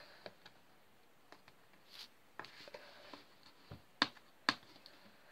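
Fingers scratching and picking at packing tape on a cardboard box, faint scuffs and small clicks with two sharper taps about four seconds in.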